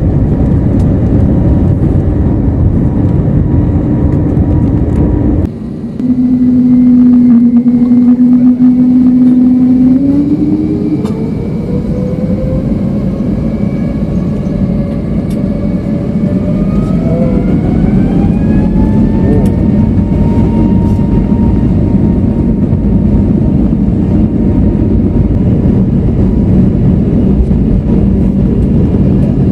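Airbus A321neo turbofan engines heard from inside the cabin. About five seconds in the sound cuts to another recording: a steady engine tone, then a rising whine as the engines spool up to takeoff thrust, levelling off into a steady loud rumble and whine.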